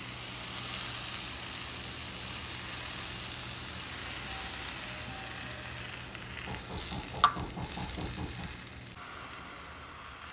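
Coconut milk sizzling steadily in a hot oiled frying pan as it is poured over a fried fish on a banana leaf. The sizzle grows busier with crackling for a couple of seconds, with one sharp clink about seven seconds in.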